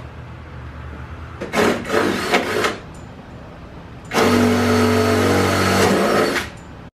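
Cordless drill drilling holes in a fiberglass Westfalia pop-top: a few short loud bursts about a second and a half in, then a steady two-second run of the motor at one pitch that stops near the end.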